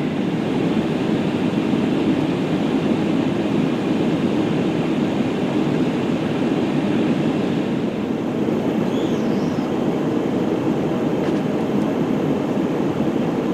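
Steady cabin noise inside an Airbus A319 airliner in flight: an even, low rush of engines and airflow.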